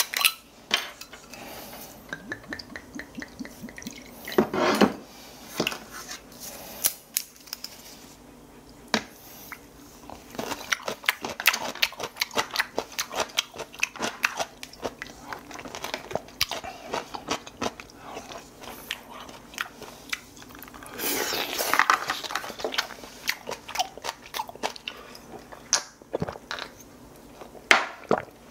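Someone eating spicy stew: a metal spoon clicking and scraping in a plastic takeout bowl, with chewing and small mouth sounds. Late on, liquid is poured, rising in pitch as it fills, most likely soju going into a glass.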